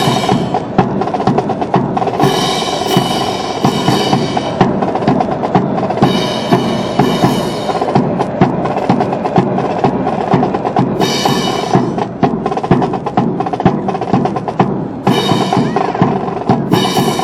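Brass band music with busy drumming: snare and bass drum strokes throughout, and held brass chords that swell up every few seconds.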